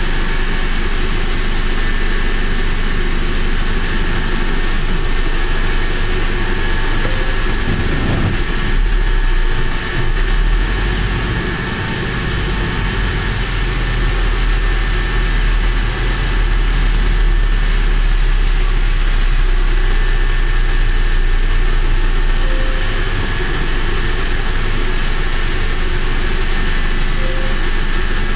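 Steady road ride noise: low wind rumble on the microphone mixed with engine and tyre noise from riding in heavy city traffic close behind a container truck.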